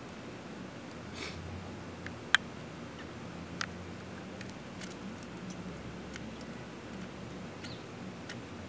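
Steady low background noise with a few small scattered clicks, one sharp click about two and a half seconds in.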